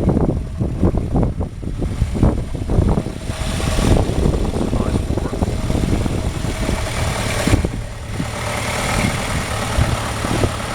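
A car engine running at idle, with a steady low hum.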